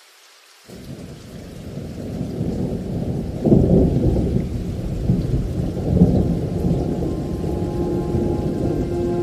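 Thunder rumbling over rain. It starts suddenly about a second in, swells with two loud peaks near the middle, and stays deep. A held musical chord starts near the end.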